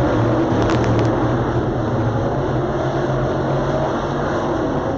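Several dirt late model race cars running laps together, their V8 engines making a steady, mixed drone. A few short clicks come about a second in.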